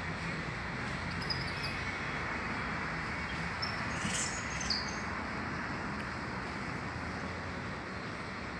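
Birds giving a few short, high chirps, once about a second in and again around the middle, over a steady background hiss.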